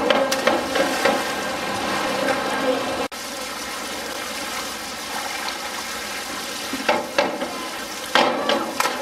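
Springboard diving at an outdoor pool: a steady hiss of water and faint voices, with a diver's entry splash within the first second. The sound drops out for an instant about three seconds in, and near the end sharp knocks from the springboard come as the next diver bounces and takes off.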